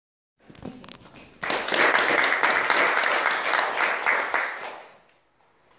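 Audience applauding, a dense patter of many hands clapping. It starts suddenly about a second and a half in and dies away about five seconds in.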